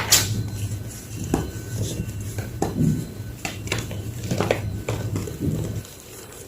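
Large slabs of gym chalk being crushed, giving an irregular series of sharp crunches and cracks, the loudest right at the start. A low steady hum runs underneath and stops about six seconds in.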